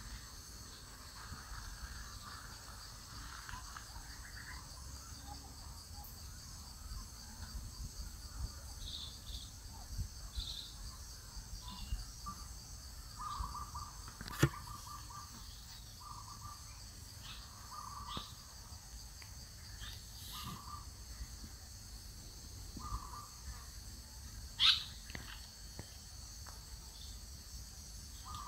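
Steady high-pitched insect drone, with a bird repeating a short call every second or two from about halfway in. There is a sharp click partway through, and a louder sharp chirp near the end.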